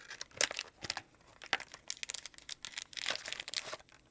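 Plastic wrap being torn and crinkled off a sealed trading-card box: a quick run of sharp crackles, busiest in the second half.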